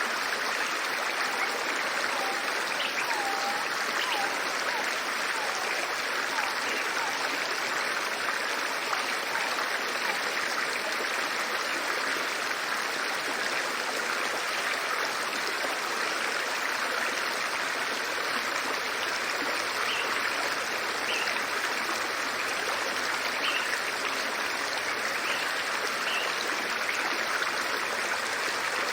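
River water running with a steady rush. Short bird chirps come now and then: a few low ones a few seconds in, and higher ones later.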